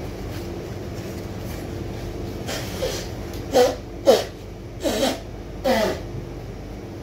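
A person off to the side making four short, sharp breathy vocal sounds, each under half a second, coming about every half second to second over a steady background hum.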